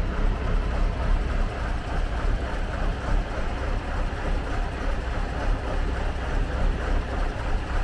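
Magirus Deutz truck's air-cooled Deutz diesel engine running as the truck drives along, with road noise. It makes a steady, low drone whose level wavers slightly.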